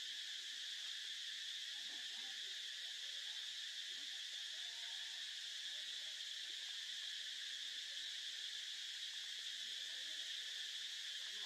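Outdoor insect chorus: a steady, high-pitched buzzing drone that does not change.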